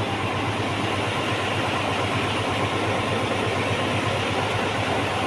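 Small road roller's engine running steadily at idle.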